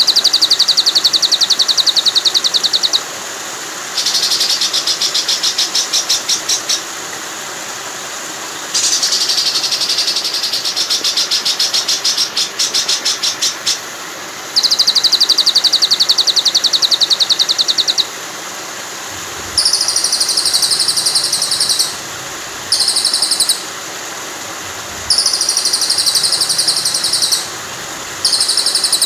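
Recorded songbird trills for training a white-rumped shama: bursts of fast, rattling repeated high notes lasting a second to about five seconds, over a steady wash of running water.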